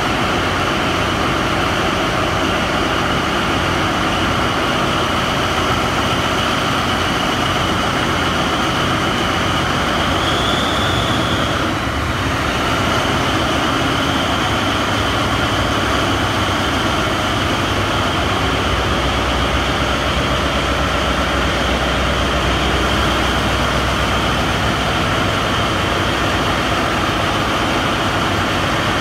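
Loud, steady din of a tractor tugboat's engine room: the diesel engines and generator set running, with a steady high whine over the rumble.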